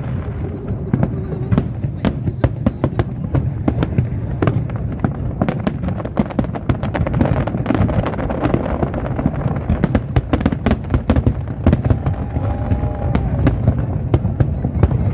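Fireworks display: a dense, continuous barrage of rapid sharp cracks and bangs over a low rumble from the shells bursting.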